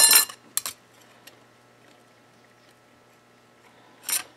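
Metal clutch plates from a 1990 Kawasaki KX125 clinking as they are handled and laid onto the clutch stack: a sharp clatter at the start, two light clicks, then quiet until another clatter near the end.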